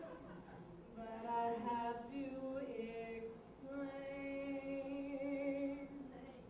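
A woman singing unaccompanied into a microphone: a run of short notes, then one long held note from about four seconds in.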